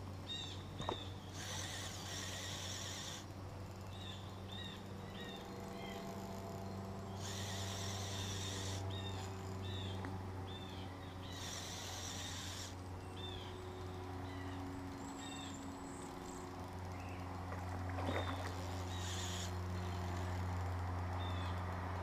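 Small birds calling repeatedly in short chirps over a steady low hum, with a few bursts of high hiss, each lasting a second or so.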